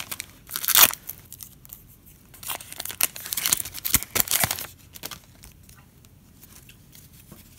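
Foil wrapper of a Donruss football card pack crinkling and tearing as it is ripped open by hand: several short rips in the first half, then only faint handling.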